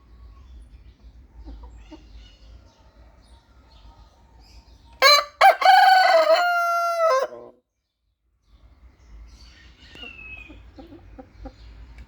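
Rooster crowing once, loud, about five seconds in: a short broken opening, then a long held note of about two seconds that drops away at the end. Fainter bird calls are scattered around it.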